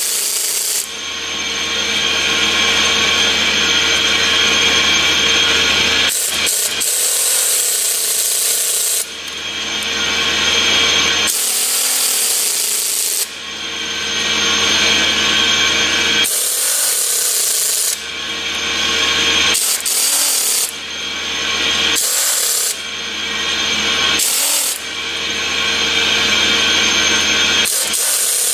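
Pneumatic air wrench running in a long series of bursts, driving the jacking studs to push the seal housing off the compressor's air end.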